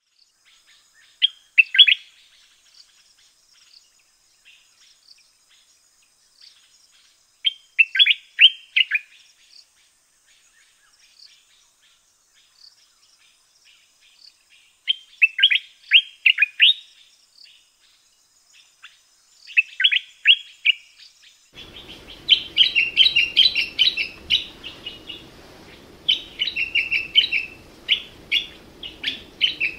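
Common bulbul (Pycnonotus barbatus) singing: short phrases of quick chattering notes, each burst a second or two long, repeated every five or six seconds. About two-thirds of the way in a light background hiss sets in and the chattering becomes denser and nearly continuous.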